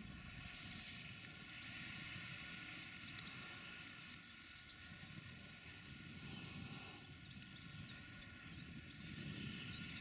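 John Deere 6930 tractor's six-cylinder diesel engine running steadily under ploughing load, a faint, even drone. Small birds chirp in short runs over it several times.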